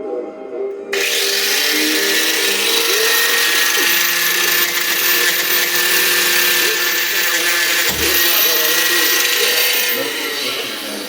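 Metalworking on scrap steel: a loud, steady hiss from a workshop tool starts abruptly about a second in and fades near the end. Background music plays underneath.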